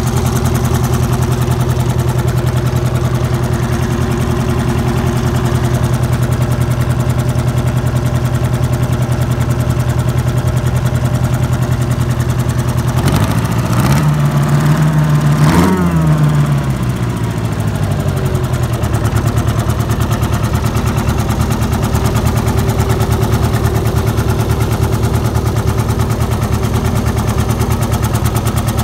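Nissan four-cylinder two-stroke diesel with a blower idling steadily, then revved up once around halfway for a few seconds and dropping back to idle.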